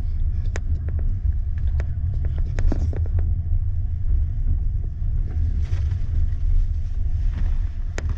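Double-decker passenger train pulling out of a station, heard from inside the carriage: a steady low rumble of the running train, with scattered sharp clicks and knocks, most of them in the first few seconds and one near the end.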